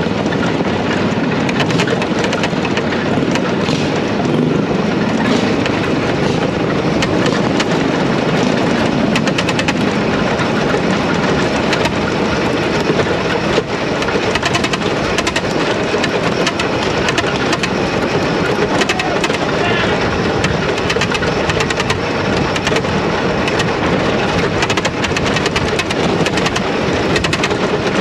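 Racing lawnmower heard from onboard, its engine running steadily with rapid even pulsing, mixed with rumble from the rough dirt and gravel track.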